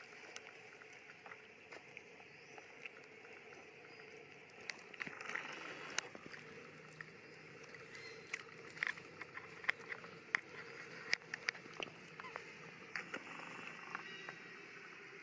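Faint steady forest background, broken from about a third of the way in by scattered sharp crackles and clicks of dry leaf litter and twigs as macaques move about on the forest floor.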